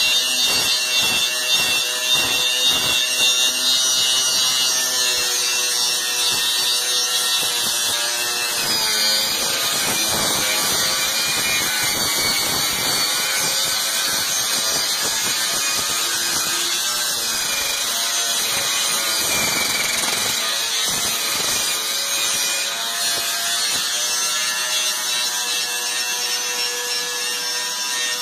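Electric angle grinder with a wire brush, running against the sheet steel of a car body panel to strip rust and paint. It makes a steady, loud scratching noise with a motor whine under it.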